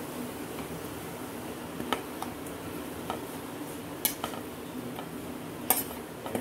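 Light clinks of a plate and utensil against a stainless-steel kadai as powdered dried fish is scraped in, about six scattered taps over a steady low hiss.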